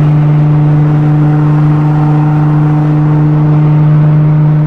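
Infiniti G35's 3.5-litre VQ V6 through a custom exhaust, droning steadily at highway cruise around 3,000 rpm. It is heard from inside the car with a window open, over road and wind noise.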